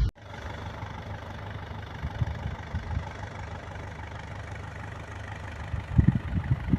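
Vehicle engine idling with a steady low rumble, with two brief low thumps near the end.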